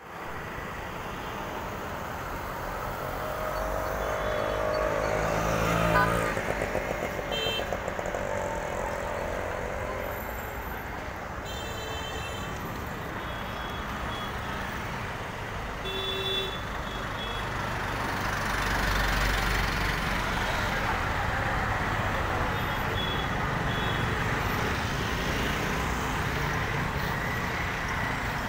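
Street traffic: vehicles running past, the loudest passing about six seconds in, with several short horn toots scattered through.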